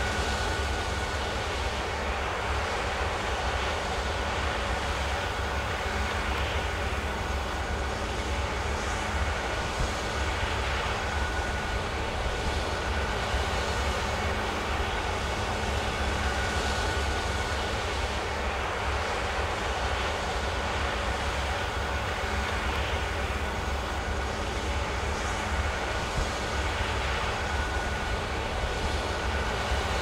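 Claas Lexion 8700 combine harvester running steadily under load while cutting rice: a constant low rumble with a faint high whine above it.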